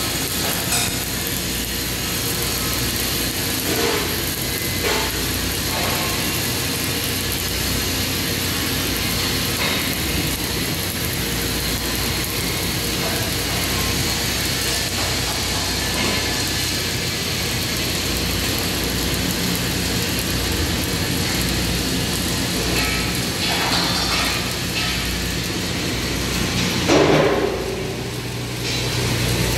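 Flux-cored arc welding on steel: the arc crackles and sizzles steadily over a low electrical hum. Near the end there is a short louder knock, and the crackle briefly drops away.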